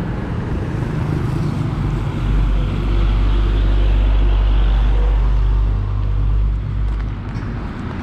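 Road traffic, with a motor vehicle's low engine rumble swelling up close from about two seconds in and fading away near the end.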